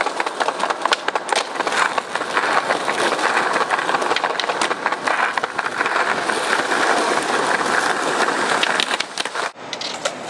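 Skateboard wheels rolling over concrete pavement, with sharp clacks of the board popping and landing. The sound drops off suddenly about nine and a half seconds in, and a few quieter clicks follow.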